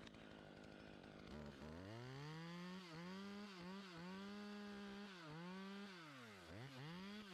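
Chainsaw, faint, revving up about one and a half seconds in and held at high speed, its pitch dipping briefly several times as the throttle eases and picks up again.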